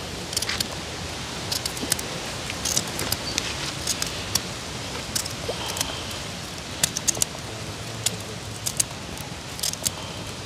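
A knife slicing a raw carrot held in the hand: a string of irregular, crisp clicks over a steady low hiss.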